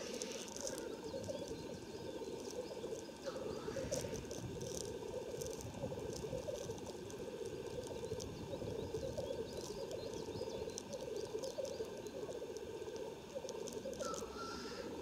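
Male black grouse at a lek, giving their continuous low bubbling, cooing display song. Three times, about at the start, near 4 seconds and near the end, a short hissing call rises over it.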